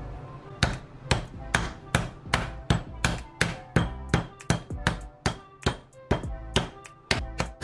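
Metal meat mallet pounding a raw chicken breast flat on a wooden cutting board: a steady run of sharp strikes, about two to three a second, starting about half a second in.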